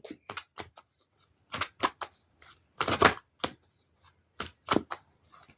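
Tarot cards being handled and laid down on a table: a run of short, sharp, irregular taps and flicks, some coming in quick clusters.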